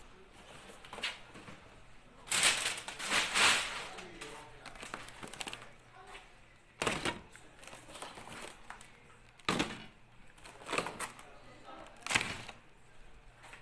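Irregular rustling and knocks close to the microphone, with a dense burst of crinkling about two to three and a half seconds in and single sharp knocks after it.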